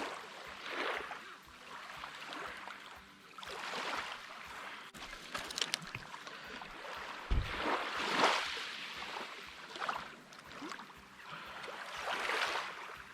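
Small waves washing against the shore, swelling and fading every couple of seconds, with one short low thump about seven seconds in.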